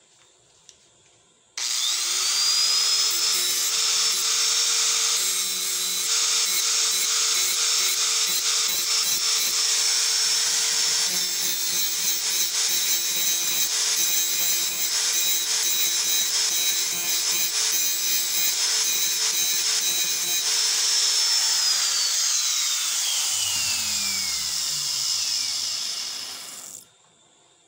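Small handheld angle grinder switched on with a rising whine, then grinding the steel end of a bandsaw blade. It is switched off about 21 seconds in and winds down with a falling whine over several seconds.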